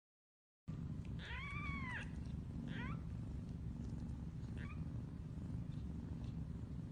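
A cat meows once, a long call that rises and falls, then gives two shorter, fainter meows, over a steady low rumble. The sound cuts in abruptly about half a second in.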